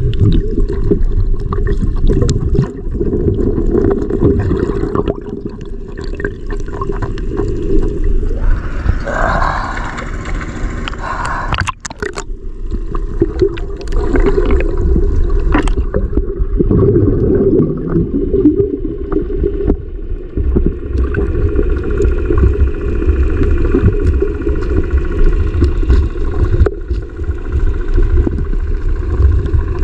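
Muffled underwater water noise picked up by a camera in a waterproof housing: a dull, churning rumble with almost nothing high-pitched. There is a brighter splashing stretch around nine to eleven seconds in and a few sharp knocks just after.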